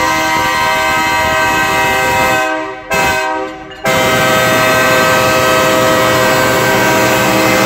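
Diesel locomotive's air horn sounding the grade-crossing pattern as the train approaches: a long blast that breaks off about two and a half seconds in, a short blast, then another long blast held from about four seconds in.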